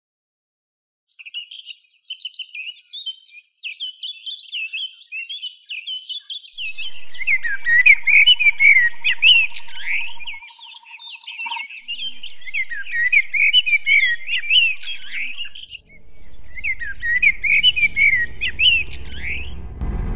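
Many birds chirping and calling over one another, with a steady high trill for a few seconds partway through. A low rumble rises in near the end.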